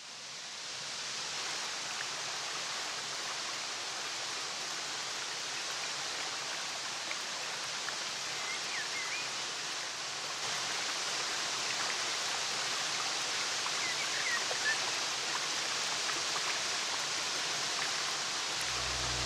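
Steady rushing outdoor ambience, a noise like running water or wind in foliage, fading in at the start and holding even. A few faint, short, high bird chirps come in around the middle. Low music notes enter right at the end.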